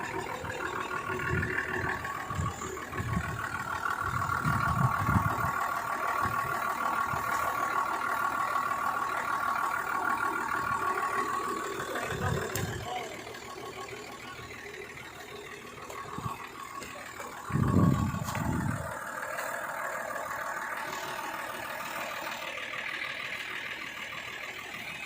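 Engine of a rice-threshing truck idling steadily with a held whine, easing off about halfway through, with a few short low thuds and a brief louder low burst near the end.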